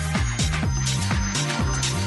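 Electronic dance-style ringtone from an LG KG300 mobile phone: a steady kick-drum beat under a stepping bass line, with hi-hat-like hits on top.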